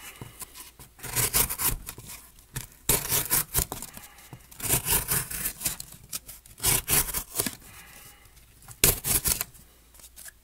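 A knife blade slicing through corrugated cardboard in several separate strokes, each under a second, with a scraping, tearing sound. The blade is the 4034-steel drop-point blade of a Smith & Wesson SWATLB knife, being put through a cardboard slicing test of its edge.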